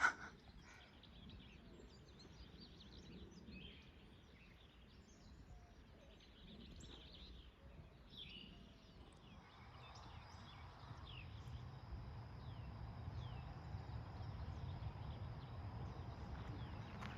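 Faint outdoor ambience of scattered short bird chirps, with a low rumble building from about ten seconds in and a thin steady high tone underneath.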